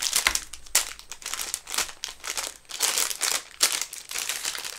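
Clear plastic wrapping crinkling irregularly as a rolled diamond painting canvas is handled and turned.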